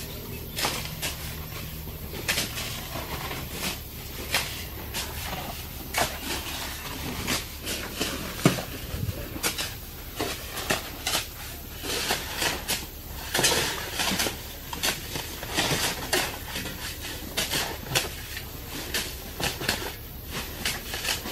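Shovels scraping and knocking on a truck bed as a load of sand is shovelled off by hand: irregular scrapes and thuds, one or two a second, from several shovels.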